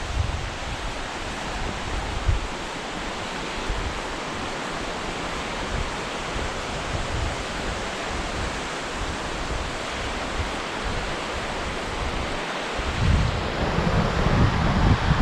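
Steady rush of water from Fukiware Falls, with wind buffeting the microphone in low gusts that grow heavier near the end.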